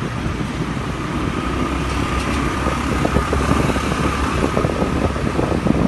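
Steady engine and road noise from a vehicle moving through street traffic: a low rumble that grows slightly louder, with a faint steady whine.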